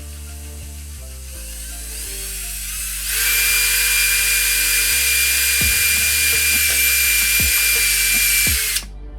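High-speed power tool running steadily with a high whine and hiss, building up over the first few seconds and cutting off suddenly near the end, over background music.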